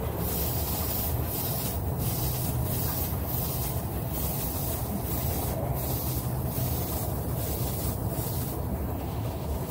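Hand rubbing on a car's painted lower door panel: a steady scrubbing hiss in even back-and-forth strokes, about three strokes every two seconds.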